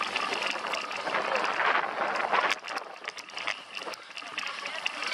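Cyclocross bike ridden fast over a bumpy grass-and-dirt course, heard from a handlebar-mounted camera: a steady rushing noise with frequent sharp rattles and knocks as the bike and mount jolt over the ground.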